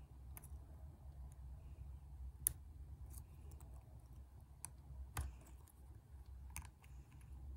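Faint, irregular metallic clicks of a lock pick and tension wrench working the pins inside a pin-tumbler lock, with one sharper click about two and a half seconds in, over a steady low hum.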